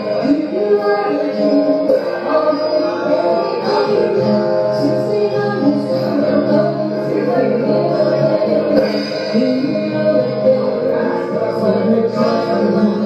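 Live band performing a pop song cover: a woman singing over acoustic guitar and drums.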